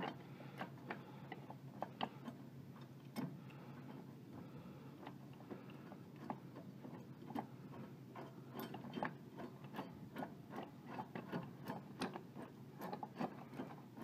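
Light, irregular metallic clicking and ticking from a blade bolt and its washers being threaded by hand into a mower deck spindle, the washers and bolt knocking against the blade as they turn.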